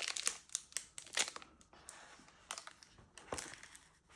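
Crinkling and rustling of trading-card box packaging being handled and opened, in irregular bursts.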